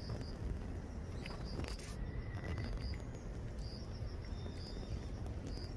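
Insects chirping: short, high chirps, often in pairs, repeating every second or so over a steady low outdoor rumble.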